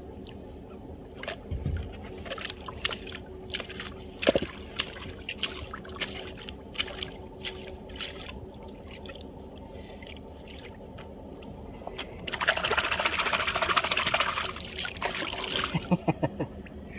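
Water splashing and sloshing as an American alligator takes food beside a boat: scattered small splashes, then a louder stretch of splashing about twelve seconds in that lasts some three seconds. A steady low hum runs underneath.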